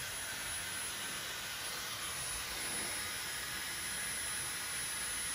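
Dyson Supersonic hair dryer running steadily with its heat turned all the way down: a constant rush of air with a thin, high whine over it, a sound like a dentist's drill.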